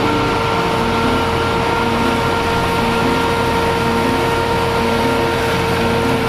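Tractor-driven baling machinery running steadily: a loud, continuous mechanical noise with a high whine held at one pitch.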